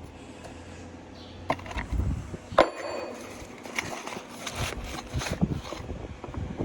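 Metal parts knocking and clinking as a new bearing race is worked into a combine final drive housing: a few sharp knocks, the loudest a ringing metal clank about two and a half seconds in, then several lighter knocks.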